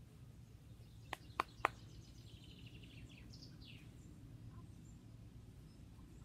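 Three sharp clicks in quick succession about a second in, then a songbird trilling briefly and giving a few falling notes in the background, over a faint low rumble.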